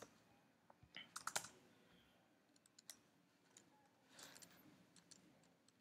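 Faint computer keyboard typing: scattered keystrokes a few at a time, with a short flurry about a second in.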